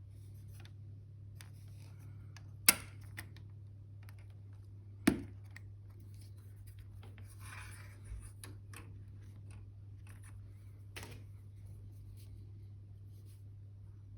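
Plastic model parts being clipped from the sprue with sprue cutters: two sharp snips about two and a half seconds apart and a softer click later, with faint scratching and tapping of small parts being handled between them, over a steady low hum.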